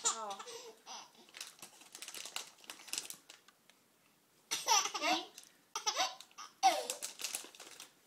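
Six-month-old baby laughing: a peal right at the start, a few quiet seconds, then three loud bursts of laughter in the second half.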